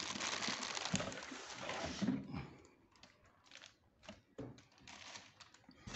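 Plastic wrapping sheet rustling and crinkling as the cardboard box is handled, for about two seconds, then scattered light taps and clicks of cardboard and packing.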